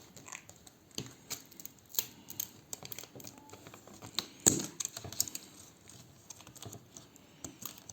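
Irregular small clicks and light taps of tools and fingers on an opened iPad 3 as its touch-screen flex cable connector is unplugged. One louder knock comes about four and a half seconds in.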